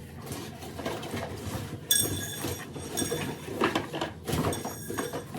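Unpacking noises: rustling and scraping of packaging with irregular knocks, and two short metallic clinks, about two seconds and about four seconds in.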